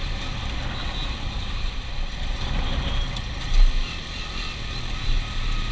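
Honda Super Dream motorcycle being ridden along: the engine running under a steady rush of road and wind noise, with a brief louder thump about three and a half seconds in.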